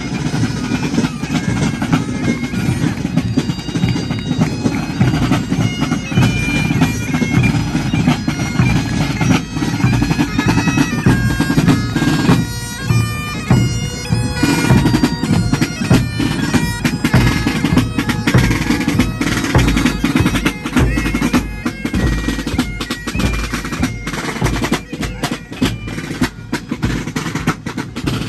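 Highland pipe band marching past: bagpipes playing a tune over their steady drone, with snare and bass drums beating along. The drumming grows stronger from about halfway through.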